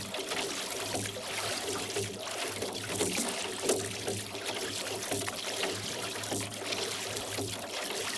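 Water splashing and trickling as a rowboat's oars dip and pull through the lake, water running off the blades.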